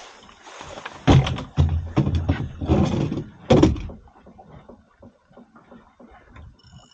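Loud bumps and rustling of handling right at the microphone for about the first four seconds, then much quieter with faint scattered ticks.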